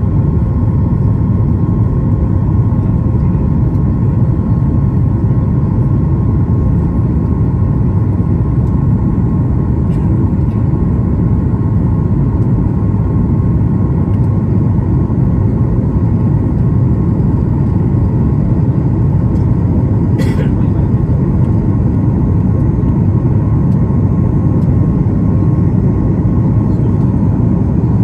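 Steady roar of a Boeing 737 MAX 8's CFM LEAP-1B turbofan engines at climb power, heard from inside the cabin over the wing, with a faint steady tone running through it. A brief sharp sound about twenty seconds in.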